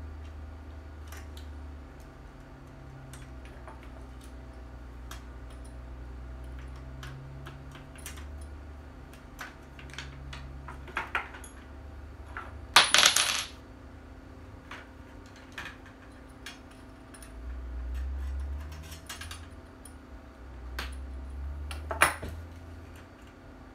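Scattered clicks, clinks and scrapes of a replica pulse rifle's parts being handled and fitted together, with a loud rattle about thirteen seconds in and a sharp click near the end.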